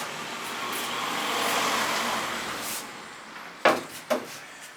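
A rushing noise, most likely a vehicle going past, swells over about two seconds and fades away. Near the end come two short knocks close together.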